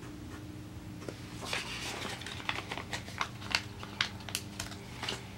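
Paper and sticker handling: crinkly rustling and a run of light ticks and taps as glitter header stickers are peeled from their sheet and pressed down onto planner pages, busiest in the second half.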